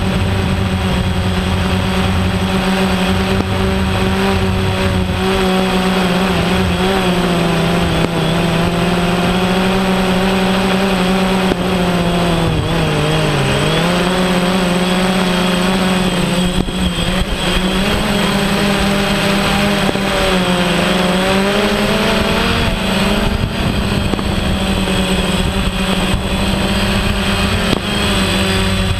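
Camera drone's propellers and motors whirring close to the microphone, a steady pitched hum whose pitch dips and recovers twice, about halfway through and again about two-thirds through.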